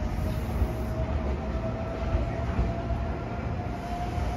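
Red Meitetsu electric train pulling away from the station: a low rumble of wheels on the track, with a thin motor whine rising slightly in pitch as it gains speed.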